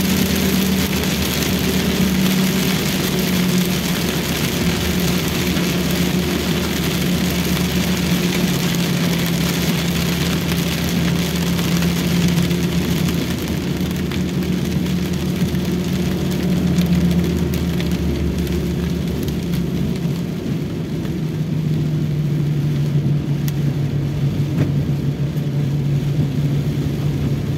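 A Toyota Rush driving in heavy rain, heard from inside the cabin: a steady engine hum under a hiss of rain and wet tyres. About twenty seconds in, the engine note drops to a lower pitch and the hiss eases.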